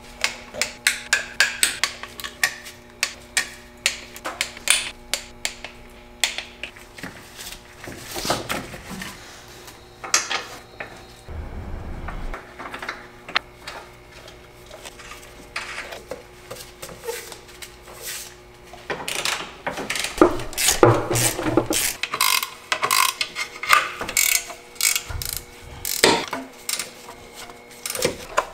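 Hand socket ratchet clicking in quick runs of strokes, with knocks of tools on metal, as fasteners are run in and tightened during reassembly after a rod bearing job.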